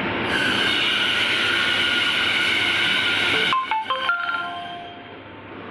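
Automatic bone-sawing band saw cutting through a large bone-in slab of pork, a loud steady grinding with a high whine. The cut stops abruptly about three and a half seconds in. A few short tones follow, then a lower, quieter machine hum.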